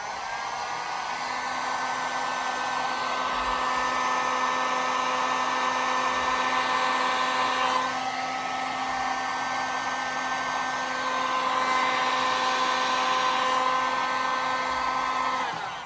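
Handheld electric heat gun blowing steadily, a hiss of hot air with a fan-motor whine, shrinking heat-shrink tubing over soldered wire joints. It spins up at the start and winds down when switched off near the end.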